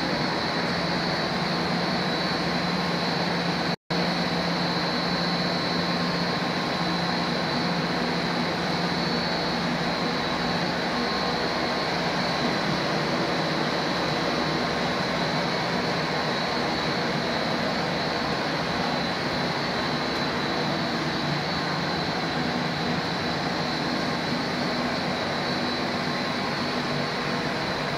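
Blown film extrusion line with an online rotogravure printing unit running steadily: an even mechanical drone of motors, blower and rollers, with a steady high whine over it. The sound cuts out for an instant about four seconds in.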